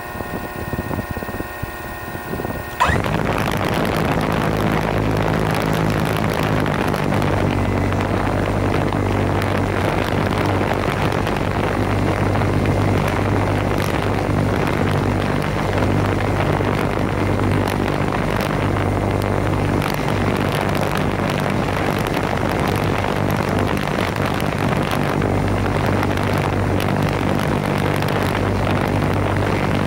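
HobbyKing Elite 5010 274 kV brushless motor driving an 18x4 carbon-fibre propeller on a thrust stand. At first there is only a steady whine of several tones; about three seconds in, the propeller spins up sharply to a loud, steady rushing drone with a low hum. It holds there on 6S at about 900 grams of thrust and 4.4 amps, the per-motor thrust needed for flight.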